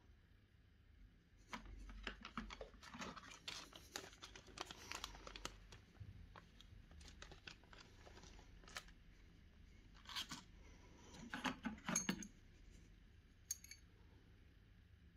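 Small plastic bags of CPU-cooler mounting hardware crinkling and rustling in the hands, with small parts clicking against each other. The sounds come in quick clusters, and the loudest burst of rustling comes about three-quarters of the way through.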